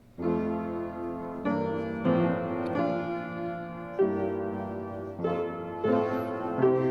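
Keyboard playing slow, sustained chords, each change a new block chord, as instrumental music in a church service.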